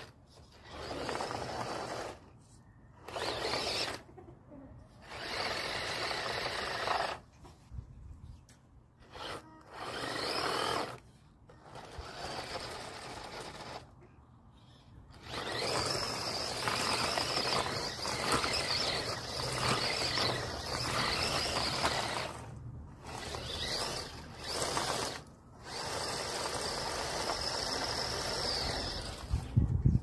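Remote-control monster truck's motor whining in repeated short throttle bursts, its tyres spinning and scrabbling in loose dirt as it tries to climb out of a hole. About halfway through it settles into longer, near-continuous runs as it drives up and out.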